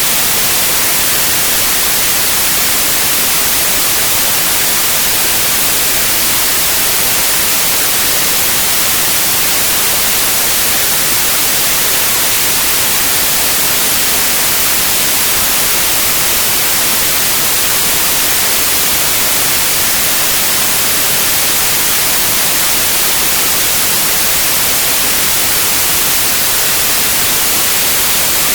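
Synthetic white noise: a loud, even hiss with no change, strongest in the high frequencies.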